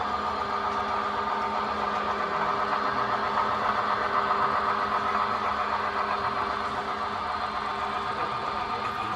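Model F7 A-B diesel locomotive pair pulling a train of coaches, a steady mechanical running sound with an engine-like hum, a little louder around the middle.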